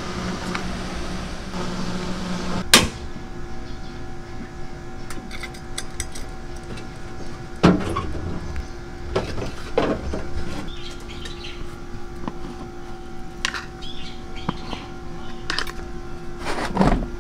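Cotton candy machine running with a steady hum from its spinning head, broken by a few sharp clicks and knocks of handling.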